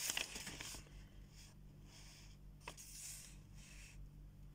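A paper delivery note rustling and crinkling as it is handled at the start, then faint soft paper rustles and one small click near the middle. A faint low hum runs underneath.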